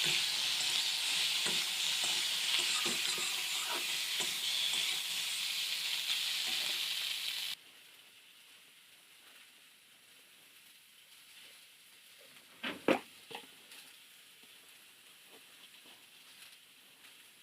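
Egg and potato curry frying and sizzling in a pan, with scattered clicks of stirring; the sizzle cuts off abruptly about halfway. After that it is much quieter, with a few sharp knocks.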